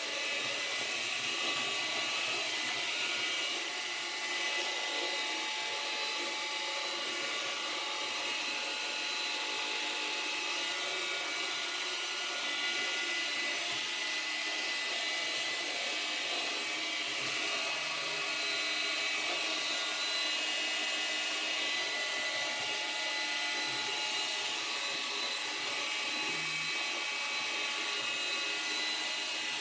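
Samsung Navibot SR8828 robot vacuum cleaner running: a steady high-pitched motor whine over an even rushing hiss of suction.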